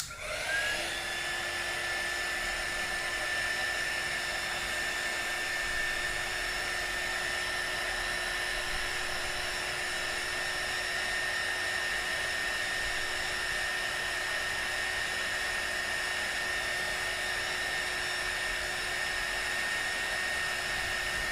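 Hot air gun running with a steady whine over a rushing airflow, heating the phone's button ribbon connector to soften its adhesive; its pitch rises as it spins up at the start and it cuts off after about twenty seconds.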